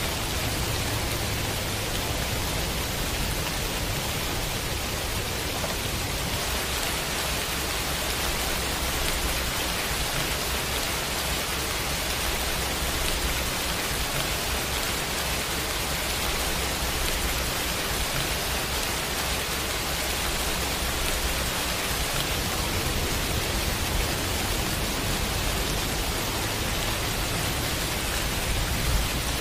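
Pouring rain: a steady, even hiss with no distinct drops standing out, over a low rumble that swells and fades.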